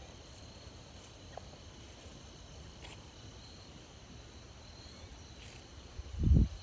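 Crickets trilling steadily in the woods, with a loud low thump near the end.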